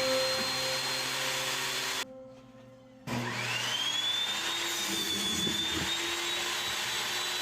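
An electric power tool motor running with a steady high whine. It stops about two seconds in, and about a second later a motor spins up again with a rising whine and then runs steadily.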